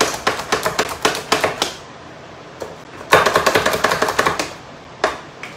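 Plunger-style hand food chopper being pumped to chop nuts: a fast, rattling run of clacks, about six or seven a second, that stops about two seconds in, then a second burst of pumping a second later, and one last clack near the end.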